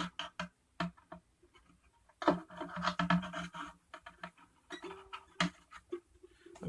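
Irregular clicks, knocks and scraping as a pickup cable and needle-nose pliers are worked inside a ukulele's hollow body through the sound hole, with brief ringing tones in between.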